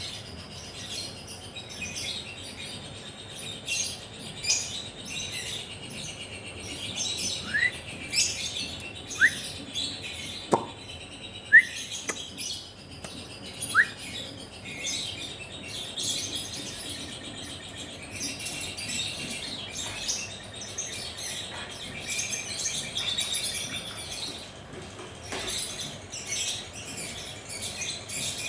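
Lovebird chattering in a continuous, dense, high-pitched stream. Four short rising squeaks come in a little before the middle.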